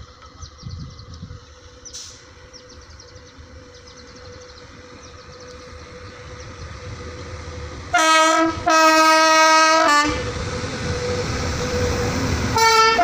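Train approaching with a slowly rising rumble. About eight seconds in the locomotive horn sounds a short blast and then a longer one, the rumble grows louder as the train comes past, and the horn gives another short blast near the end.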